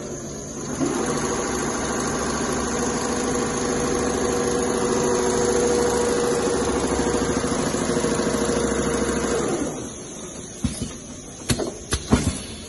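Two-head CNC leather sewing machine stitching at speed: a fast, even run of needle strokes over a steady motor hum, which stops about ten seconds in. A few sharp clicks follow near the end.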